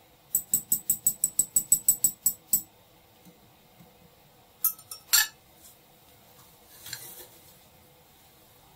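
Metal spoon clinking rapidly against a bowl while stirring, about a dozen quick ringing strikes at roughly six a second. About five seconds in come three more clinks, the last the loudest, then a softer scrape.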